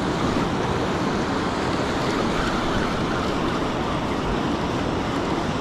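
Steady rushing wash of ocean surf, with wind on the microphone.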